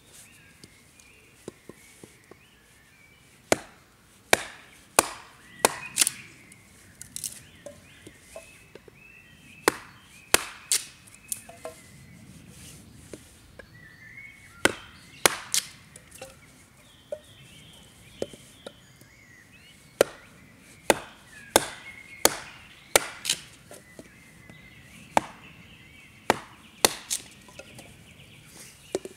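Small hatchet chopping wood: sharp, hard strikes in quick runs of two to four, with short pauses between the runs.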